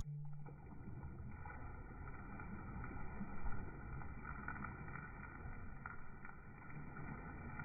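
Steady rumbling noise of a boat on a river, with a few faint steady tones above it and one louder bump about three and a half seconds in.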